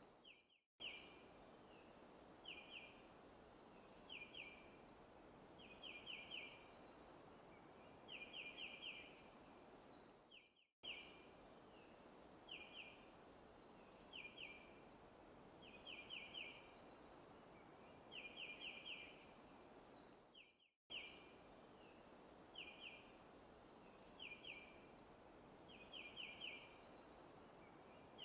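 Faint forest ambience: a bird repeating a short chirping call of two to four quick high notes every second or two over a steady background hiss. The recording is a loop that fades out briefly and restarts about every ten seconds.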